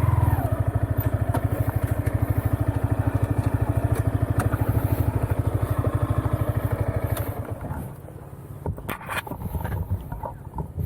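Yamaha XSR155's single-cylinder engine idling with a steady pulsing beat, its revs falling just as it starts. It goes quiet about eight seconds in, followed by a few knocks and some clatter.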